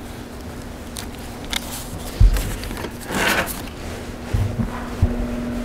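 Pause in a church service with no speech: a few soft thumps and knocks and a short rustle as people shift and move. A low steady hum comes in near the end.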